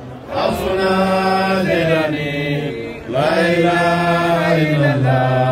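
Male Islamic devotional chanting of Sufi dhikr: long drawn-out sung phrases of about three seconds each, with a short break for breath between them, each phrase stepping down in pitch toward its end.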